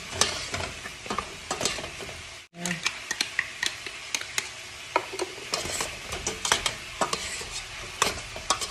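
A metal spoon stirring chicken wings through sizzling sriracha-butter sauce in a stainless steel pot, with frequent sharp clinks of the spoon against the pot over a steady sizzle. The sound breaks off for an instant about two and a half seconds in.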